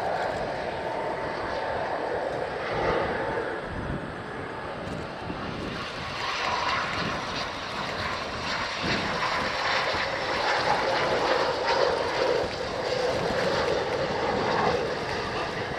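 Eurofighter Typhoon's twin EJ200 turbofan engines as the jet rolls along the runway: a steady jet engine noise.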